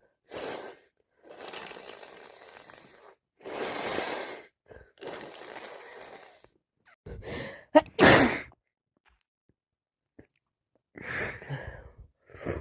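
A person's sneeze build-up caused by a head cold: several long, gasping breaths in, then one loud, wet sneeze about eight seconds in, and a shorter breathy sound near the end.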